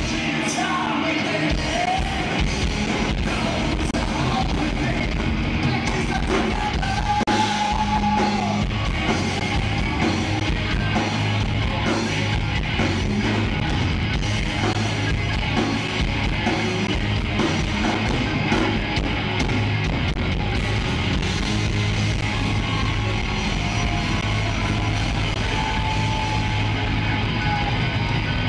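Live rock band playing loud, with electric guitars, bass and drums and a voice singing.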